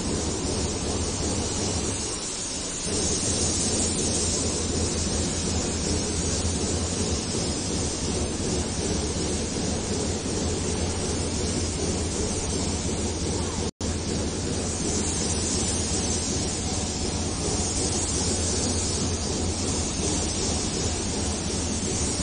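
Steady rushing background noise with a low hum, without a break except a slight dip about two seconds in and an instant's cut-out about fourteen seconds in.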